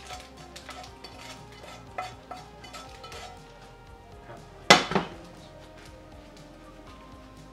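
Wooden spoon scraping and tapping toasted panko crumbs out of a frying pan into a bowl, with light scrapes and clicks. About five seconds in, the pan is set down on a glass-top stove with a loud double knock.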